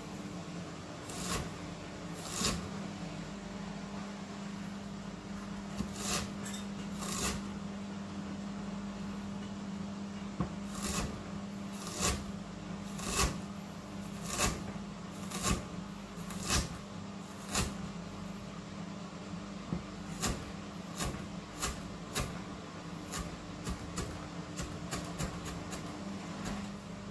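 Knife slicing on a cutting board, short sharp strokes coming unevenly about once a second, over a steady low hum.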